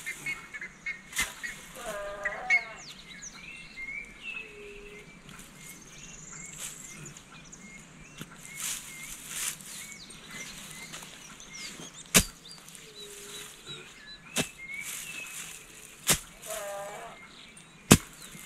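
A goat bleating twice, short wavering calls about two seconds in and again near the end, over birds chirping. A few sharp knocks, the loudest of all, come at intervals, with some rustling in between.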